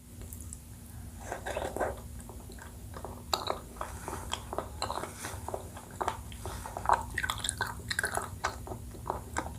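Close-miked chewing and biting of a Thai dessert in coconut milk: many irregular wet smacks and small clicks with a few crunches, coming thicker from about three seconds in.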